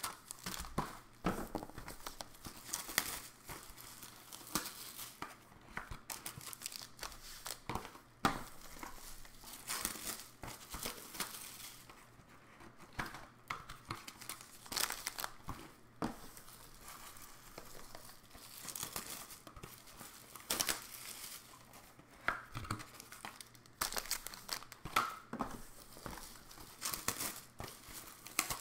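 Wrapping on trading-card boxes being torn open and crinkled: irregular crackling and tearing of cellophane and foil, with sharp crackles throughout.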